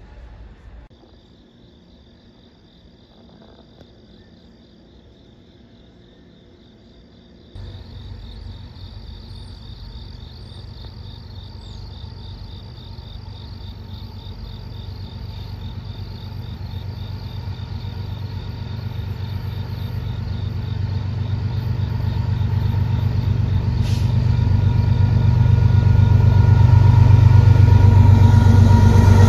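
Insects chirping steadily in a quiet spot. About seven seconds in, the low rumble of an approaching BNSF freight train's diesel locomotives comes in and grows steadily louder until it is the loudest sound as the engines draw near.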